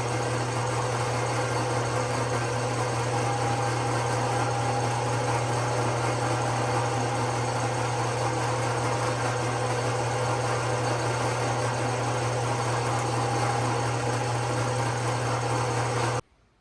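Wood lathe running steadily with a constant motor hum while tie wire is held against the spinning wooden knob to burn a line in it. The sound cuts off abruptly near the end.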